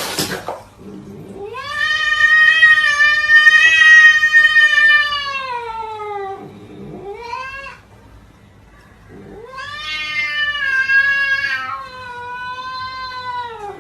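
A domestic cat yowling in long drawn-out calls: a long call that falls in pitch at its end, a short rising one, then after a pause of about a second another long call. A short burst of noise cuts off in the first half second.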